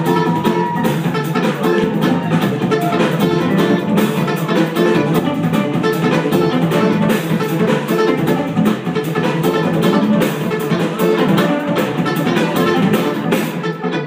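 Live jazz-fusion band playing a steady groove: electric guitars, electric bass and keyboards over a drum kit.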